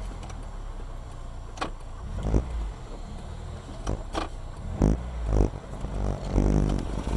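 A car engine and road rumble heard from inside a car, with about six sharp knocks or rattles at irregular moments.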